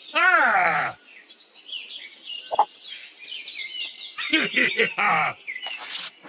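Dubbed-in farm sound effects: a loud animal call about a second long that rises and then falls in pitch, then birds chirping and twittering, with a few short bleating animal calls about four to five seconds in.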